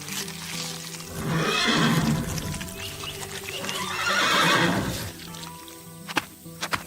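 Background music with two long animal calls of about a second each, and a few sharp clicks near the end.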